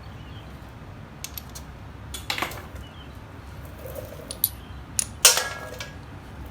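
Scattered metal clicks and clinks of a hand tool working loose the pad pin on a Harley-Davidson rear brake caliper, with a sharp ringing metallic clank about five seconds in.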